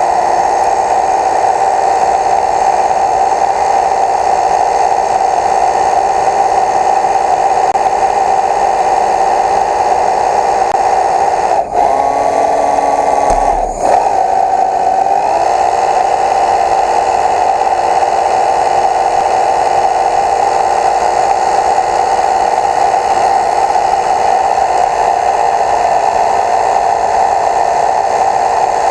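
A small motor whining steadily. Its sound cuts out briefly twice about halfway through, with its pitch shifting between the two breaks before it settles back to the same steady whine.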